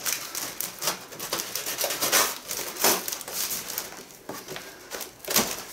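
A large cardboard box being opened: the packing tape on the top seam is slit and the cardboard flaps are pulled apart, giving irregular scraping and rustling with a few sharper rips, the loudest about two and three seconds in.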